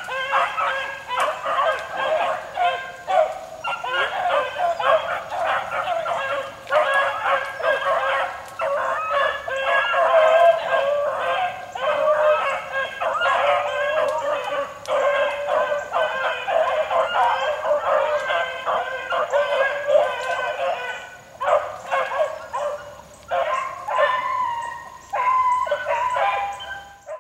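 A pack of young beagles baying in chorus as they run a rabbit's track, many voices overlapping with hardly a break, then thinning into separate calls for the last few seconds.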